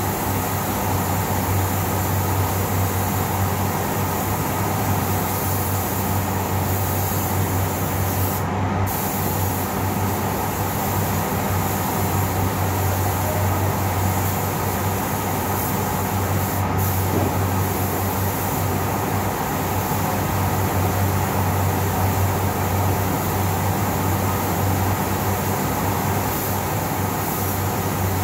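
Steady low hum and rushing air of a paint-booth extraction fan, with the hiss of a compressed-air spray gun spraying car paint. The high hiss cuts out briefly twice.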